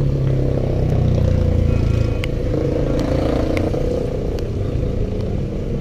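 A motor vehicle engine idling close by: a steady low hum, a little louder in the first couple of seconds, with a few light clicks over it.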